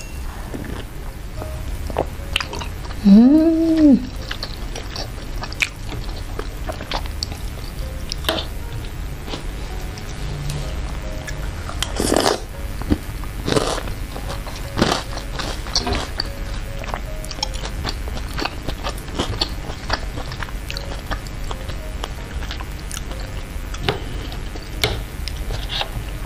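Close-miked chewing of soft meatballs in spicy broth, with many short wet mouth clicks and lip smacks. A hummed 'mmm' rises and falls about three seconds in, and a longer, louder sip from a spoon of broth comes about twelve seconds in.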